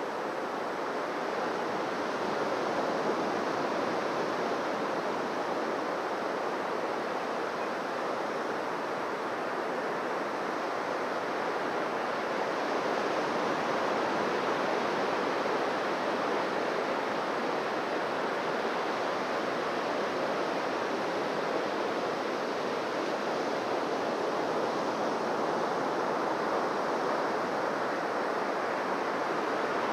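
Ocean surf washing on a beach: a steady, unbroken rush of waves.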